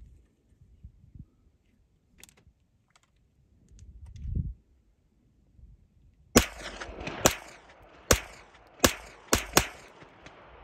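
Six 9mm shots from a Smith & Wesson FPC carbine fitted with a Kaw Valley Precision linear compensator (sound forwarder), starting about six seconds in and fired at an uneven pace over about three seconds, the last three closest together. Each sharp crack trails off in a brief echo.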